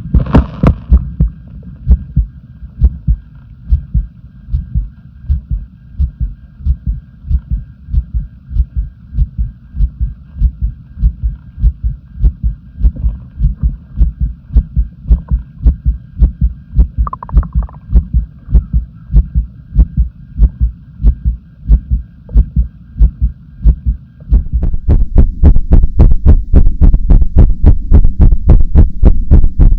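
Human heartbeat picked up at close range on the chest, an even run of low thuds. About 24 s in it changes to a louder heartbeat with more closely spaced beats.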